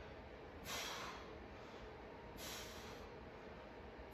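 A man breathing out hard twice, about two seconds apart, with the effort of pressing a resistance band out in front of his chest.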